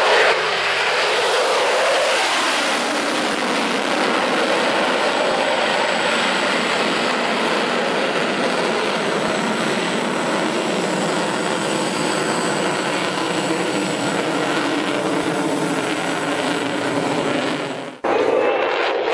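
Eurofighter Typhoon's twin EJ200 turbofan engines at full power with afterburners lit, a loud, steady jet noise as the fighter climbs overhead. The sound cuts off abruptly about 18 seconds in and comes straight back.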